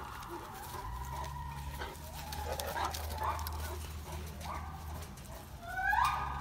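High-pitched animal calls from the gibbon enclosure with the Newfoundland dogs at the fence: long held whining notes, with a louder rising swoop near the end.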